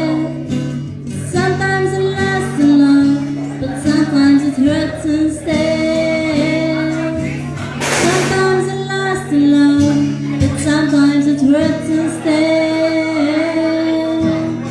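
A woman singing a slow ballad live through a PA to her own acoustic guitar, holding long notes, with a brief hiss about eight seconds in.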